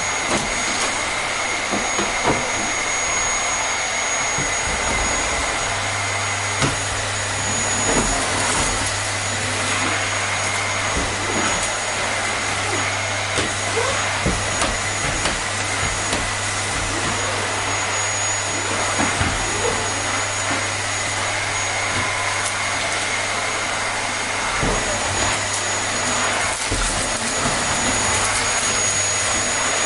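Vacuum cleaner running steadily, a continuous rushing noise with a steady high whine.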